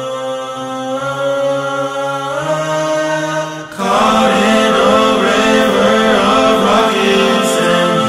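Multi-tracked a cappella voices, one singer overdubbed in many layers, holding sustained wordless chords that move to a new chord about two and a half seconds in. After a brief dip near the middle, a louder, denser section of many moving vocal lines takes over.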